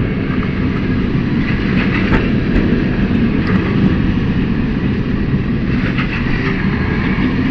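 Lisbon's Tram 28 electric streetcar running on its rails: a steady low rumble with a few faint clicks from the wheels and track.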